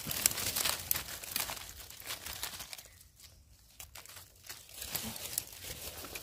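Dry fallen leaves crackling and rustling as someone moves and works among them. The crackling is busy for the first two seconds, dies away in the middle, and a few faint crackles come back near the end.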